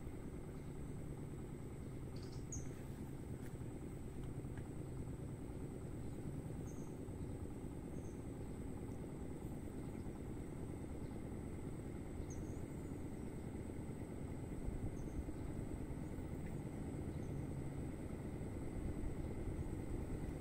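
Steady low rumble with a constant high-pitched insect drone above it and a few short, faint chirps.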